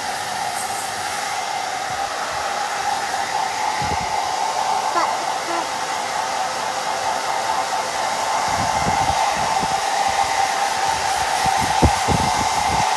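Hair dryer blowing steadily, run on its cold setting to dry a small child's hair. Low bumps near the end.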